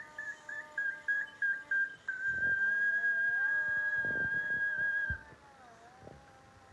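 High whistling: a quick run of short chirping notes, then one long held note of about three seconds over lower sliding tones. It fades out about five seconds in.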